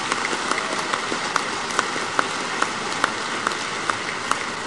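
A large audience applauding, a dense, even patter of many hands clapping that fades slightly toward the end.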